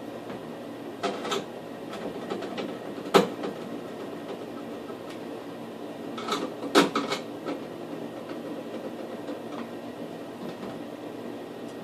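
Sharp clicks and knocks of a vanity light fixture being handled and fitted to the wall by hand, the loudest about three seconds in and a cluster near seven seconds, over a steady background hum.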